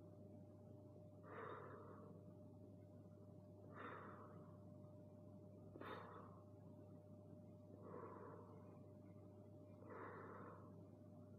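Faint, slow breathing of a person holding a deep seated forward stretch: five soft exhalations about two seconds apart.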